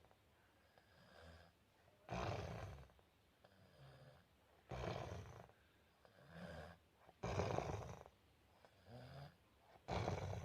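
A sleeping man snoring: four loud snores about two and a half seconds apart, each with a softer breath sound in between.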